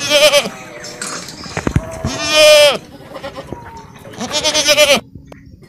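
Goats bleating: three wavering bleats, the loudest and longest about two seconds in.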